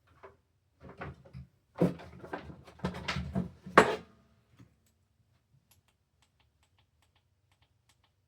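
A run of knocks and clatters from objects being handled on a desk, the loudest about four seconds in, followed by a few faint light ticks.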